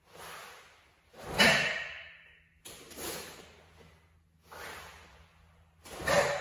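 Forceful, hissing breaths of a karateka performing the kata Seisan, about every one and a half seconds in time with the tensed techniques. The loudest comes on suddenly about a second and a half in.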